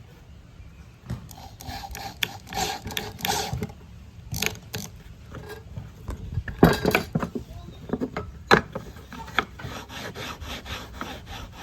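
Irregular scraping and rubbing with many scattered sharp clicks and knocks; the loudest knocks come at about seven and eight and a half seconds in.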